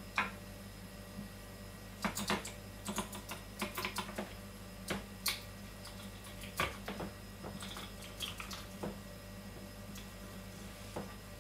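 Irregular light clicks and taps of a knife against a wooden cutting board, with wet handling of eel flesh as the eel is cut down the side of its backbone and opened up. A steady low hum runs underneath.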